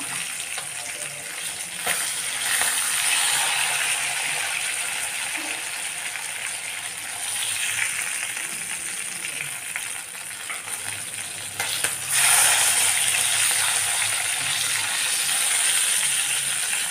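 Masala-coated king mackerel frying in hot coconut oil in a nonstick kadai, with a continuous sizzle. The sizzle swells louder several times as the pieces are moved and lifted out with a spoon. There are two sharp taps of the spoon against the pan, at about two seconds in and near twelve seconds.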